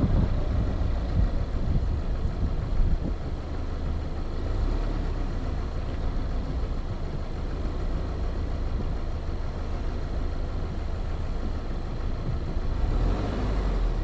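2020 Subaru Outback's flat-four engine and tyres on a rough dirt track, heard from a hood-mounted camera. A steady, deep rumble of the car driving along.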